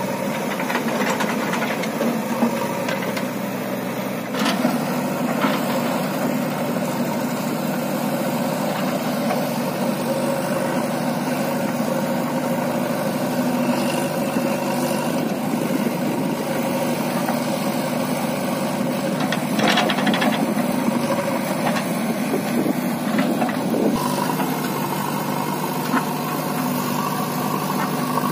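Diesel engines of a JCB backhoe loader and a Swaraj tractor running steadily while the backhoe digs and loads soil into the tractor's trolley. A few sharp knocks come through.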